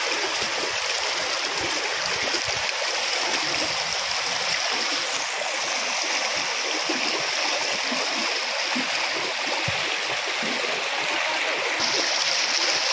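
Heavy rain falling on a river, a steady even hiss.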